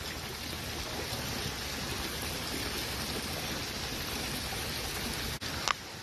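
Steady rush of creek water running. A brief knock from the phone being handled comes near the end.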